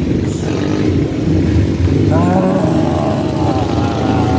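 An engine running steadily with a dense low rumble, with a brief vocal sound about two seconds in.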